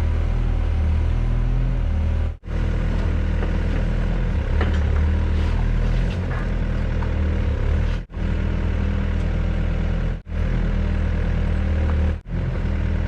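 Excavator diesel engine running steadily under work, with a faint clank about four and a half seconds in. The sound cuts out for an instant about four times.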